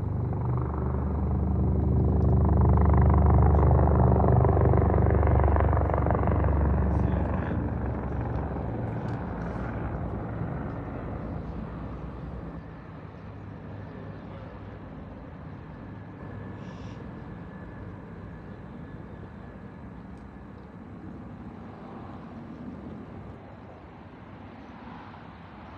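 Heavy engine passing by with a low, even drone: loudest a few seconds in, then fading away over the next several seconds.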